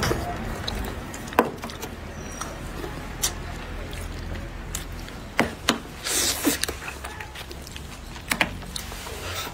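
Close-up eating sounds from someone working through a chopped-pepper fish head: sucking and slurping at the fish, with lip smacks and a handful of short sharp clicks, over a low steady hum.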